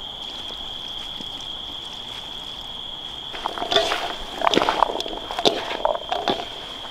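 Hands mixing boiled green peanuts, chopped vegetables and lemon juice in a steel basin, starting about halfway in: wet sloshing rustles and clicks of the peanuts against the metal. A steady high-pitched whine sits underneath.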